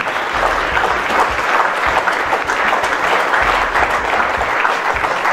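An audience applauding: many people clapping in a dense, steady patter.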